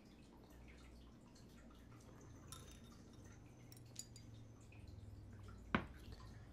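Ayinger Celebrator doppelbock poured from its bottle into a teardrop glass, a faint trickle of beer into the glass. Near the end, a single sharp knock as the glass is set down on a tiled tabletop.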